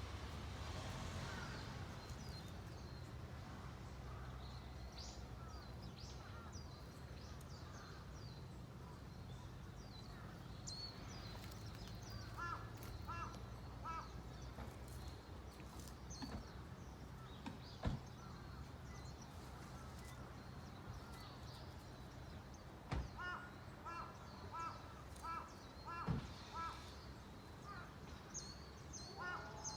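Outdoor ambience with a low background hum, small birds chirping, and twice a bird calling in a quick run of short repeated notes. A few sharp clicks stand out.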